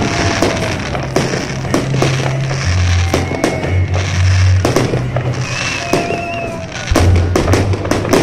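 Fireworks display: aerial shells bursting in many irregular bangs and crackles, several a second. Music with a heavy bass plays underneath.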